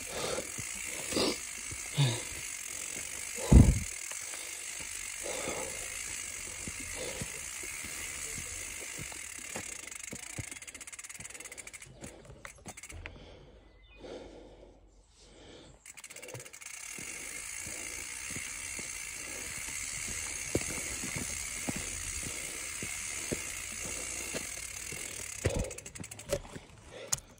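Mountain bike rolling down a rocky dirt singletrack: a steady rushing noise of tyres and air, with the bike rattling and knocking over rocks and roots. The loudest is a heavy thump about three and a half seconds in, and the rushing drops away for a few seconds around the middle.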